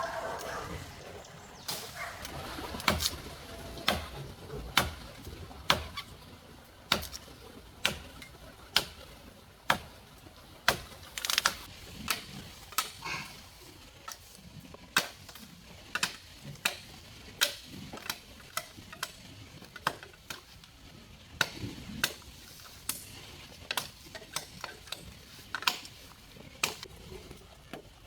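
A blade chopping into bamboo in steady strokes, about one sharp crack a second.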